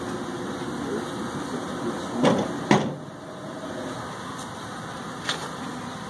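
Steady buzzing of a honeybee swarm clustered on a cut branch, with two sharp knocks a little over two seconds in and a lighter one near the end.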